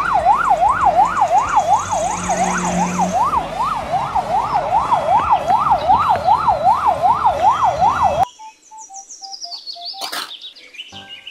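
Police car siren in a fast yelp, its pitch rising and falling about three times a second, that cuts off abruptly about eight seconds in. A short run of faint falling notes and a click follow.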